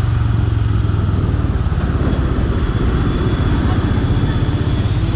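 Royal Enfield Himalayan's single-cylinder engine running steadily at low road speed, a pulsing low rumble heard from the rider's position.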